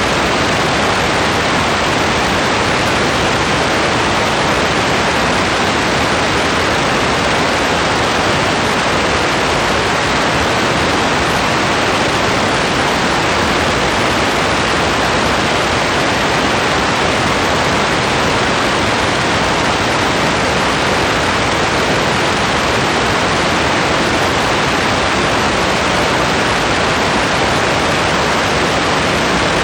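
Steady rain, heard as a dense, even hiss with no separate drops, thunder or other events standing out.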